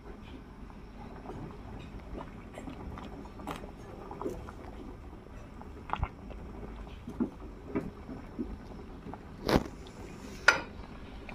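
Sinigang broth with fish and shrimp at a boil in a stainless steel pot, a steady bubbling, with scattered light clicks of a spoon stirring and two louder knocks of the spoon against the pot near the end.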